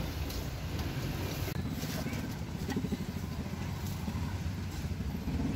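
Street traffic noise: a steady low rumble of passing vehicles, with faint voices and a few light knocks.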